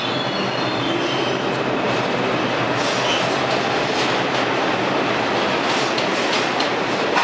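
New York City subway train, an R62, pulling out of the station. A high wheel squeal trails off at the start, then a steady rumble, with the wheels clacking over rail joints more and more often in the second half as it gathers speed.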